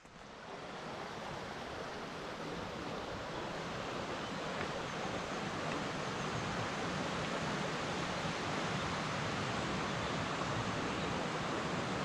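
Steady rush of the Vartry River's fast water through a rocky gorge. It swells up over about the first second, then holds, growing slowly louder.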